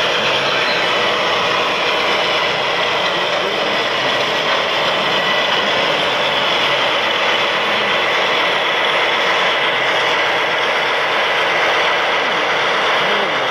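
Gauge 1 model freight train running steadily past on the track: model tank wagons, then a model DB class 260 (V60) diesel shunter with its smoke generator working.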